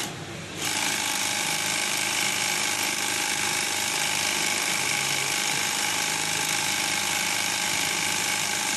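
Jiang Long 1342 two-needle cylinder-arm lockstitch sewing machine starting up after a short click about half a second in, then running steadily with an even, fast mechanical clatter as it stitches a webbing strap.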